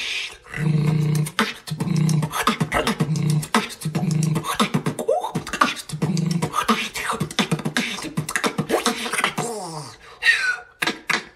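Solo beatboxing: a hummed bass note that returns about once a second in the first half, under fast mouth clicks, kicks and snares. A falling whistle-like glide comes near the end.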